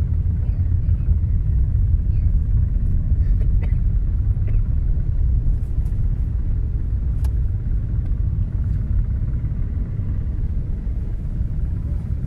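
Distant rocket launch rumble from a SpaceX Falcon 9, heard from about 13 miles away: a deep, steady low rumble that swells up at the start and holds.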